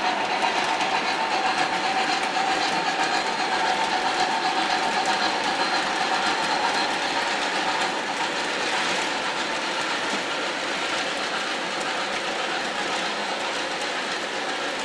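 O-scale model train, an MTH Premier PRR G-5s steam locomotive with passenger cars, running along three-rail track: a steady whir of the motor and clatter of the wheels, slowly fading as it moves away.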